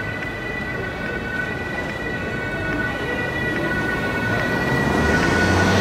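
Steady high-pitched electrical whine, two tones held together, from a VGF transit vehicle's electrical equipment. Broader running noise builds louder about five seconds in.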